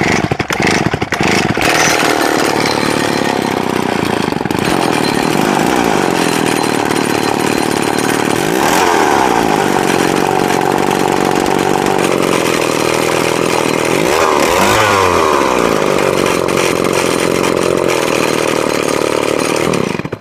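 Old Mastercraft two-stroke chainsaw, just started, running loud. Its pitch rises and falls briefly twice, about nine and fourteen seconds in, and it cuts off suddenly at the end. The owner takes the loud exhaust note for a shot exhaust.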